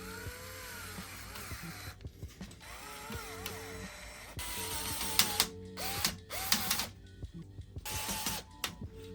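Small electric screwdriver driving fan mounting screws in about five short runs, its motor whine rising and falling with each run. Steady background music runs underneath.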